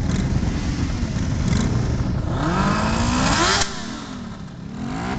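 Several motorcycle engines running in a line-up. About halfway through, one is revved, its pitch rising for about a second and a half before cutting off sharply. After that an engine note falls and then rises again near the end.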